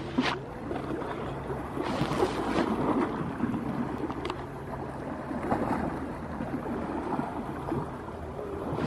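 Small sea waves lapping and splashing against the rocks of a breakwater, with a louder wash about two seconds in.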